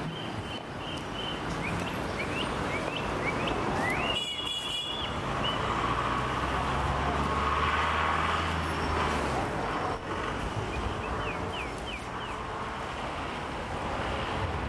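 City street traffic: a steady wash of passing cars and scooters, with a low engine hum from a large vehicle through the middle. Short high rising chirps come in quick succession near the start and again late, and there is a brief high tone about four seconds in.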